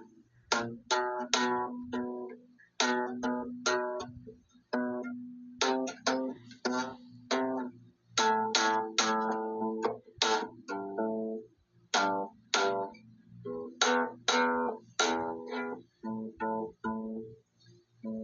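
Slap bass playing a loose line of separate notes, each starting with a sharp, bright pop and ringing briefly, some clipped short and some held.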